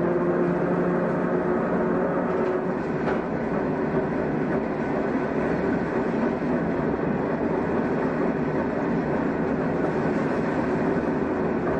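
Old electric train with nose-suspended traction motors running along the line, a steady rumbling run. A motor hum sits over it at first and fades out about two seconds in, leaving the even running noise of the car with a couple of faint clicks of the wheels over rail joints.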